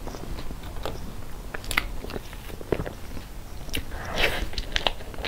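Close-miked eating sounds of a mouthful of cream cake: sharp wet mouth clicks and lip smacks, with a louder, noisier mouthful about four seconds in as a spoonful of cream goes into the mouth.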